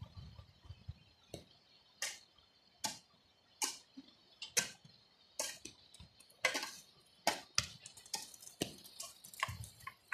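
A hand digging tool, such as a pick or iron bar, striking stony ground: faint, sharp knocks about one or two a second, unevenly spaced.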